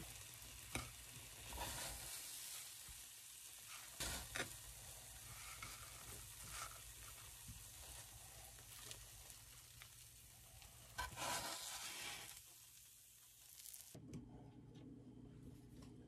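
French toast cubes sizzling in a frying pan, with a few sharp clicks and knocks of a utensil lifting pieces out onto a plate. The sizzling cuts off abruptly about two seconds before the end, leaving quiet room tone.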